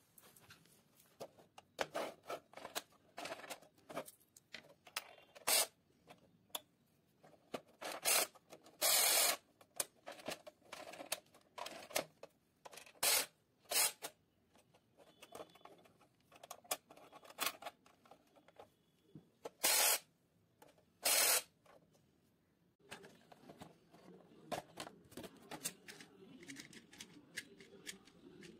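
Irregular clicks, knocks and short rattling bursts of hard plastic from a toy puppy coin bank being handled.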